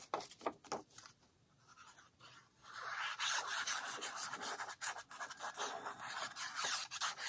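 Paper rustling briefly, then a white glue squeeze bottle being worked across a scrap of paper: its nozzle scratches and hisses over the paper without a break for the last four seconds or so as glue is laid down in squiggles.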